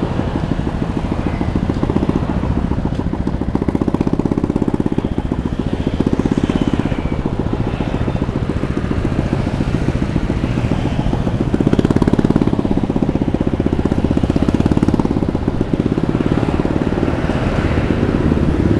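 Motor scooter engine running while riding, heard from on board as a steady, fast pulsing hum that swells louder about four seconds in and again around twelve seconds.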